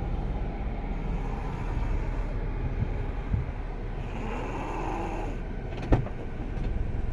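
A man snoring: a rough, low rumbling breath sound, with a pitched, wavering stretch a little past the middle. A single sharp click comes about six seconds in.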